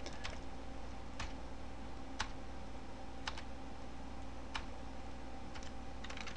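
Computer keyboard keys pressed one at a time, a single sharp click roughly every second. A low steady hum sits underneath.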